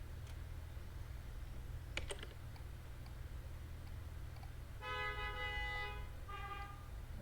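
A quick cluster of computer mouse clicks about two seconds in, then a steady pitched tone held for about a second and a shorter one just after it, over a low steady hum.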